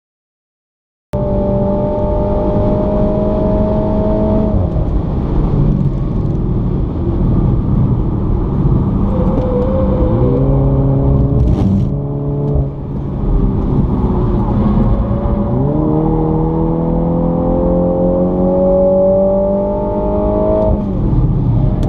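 About a second of silence, then a Mini's engine pulling under acceleration through the gears. The pitch climbs and drops at a shift about four seconds in, changes again around ten to twelve seconds, then makes a long rising pull from about fifteen seconds that falls away near the end.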